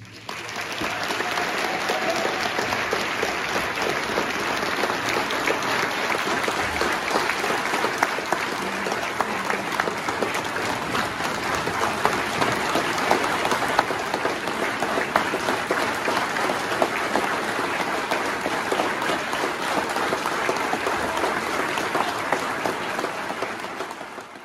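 Audience applauding: many hands clapping steadily, fading out near the end.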